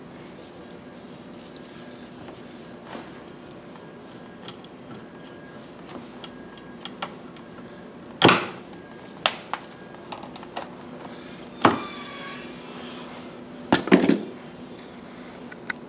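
Car door trim panel being worked loose: scattered light plastic clicks and knocks, with three loud sharp cracks, about halfway through and twice near the end, over a steady low hum.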